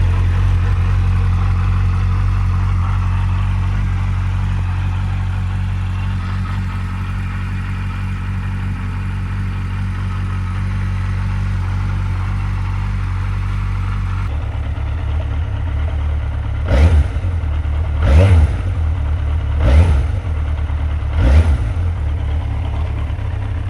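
Yamaha XJR 1300 inline-four motorcycle engine running on its stock exhausts. It idles steadily, then is blipped four times, each rev rising and falling quickly about a second and a half apart, before settling back to idle.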